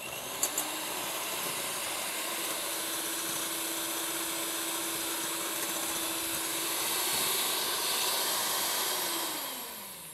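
Electric mixer running steadily, beating egg yolks with sugar; its motor winds down near the end as it is switched off.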